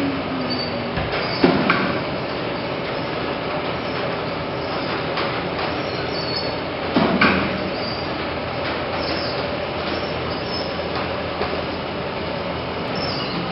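Omnimax (IMAX Dome) 70 mm film projector running, with a steady mechanical noise and two short, louder clunks, one about a second and a half in and one about seven seconds in.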